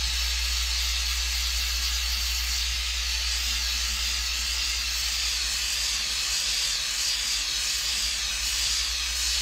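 Handheld gas torch flame hissing steadily over a low rumble while it heats a ring shank to anneal it.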